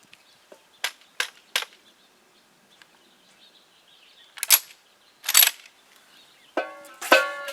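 Sharp metal clicks and clacks from a lever-action 1873 rifle being worked: three quick clicks about a second in, then two louder clacks about a second apart. A short pitched sound follows near the end.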